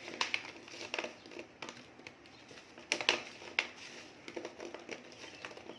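Homemade hard honey-ginger cough drops being tossed and rolled in powdered sugar, giving a few irregular light clicks and taps as the candies knock together.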